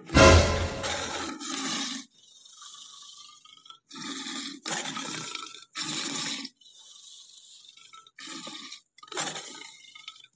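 Cartoon sound effect of a tiger roaring, loud and deep for about a second, followed by a string of short rough bursts spaced about half a second to a second apart.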